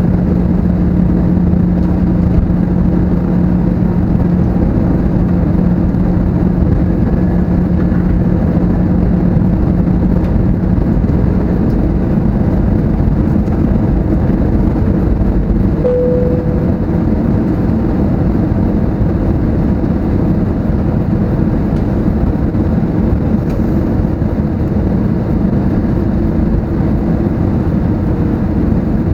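Steady cabin noise inside an Airbus A320neo airliner in flight on approach: the rush of airflow and engine noise. A low steady hum under it stops about a third of the way through, and a brief higher tone sounds about halfway.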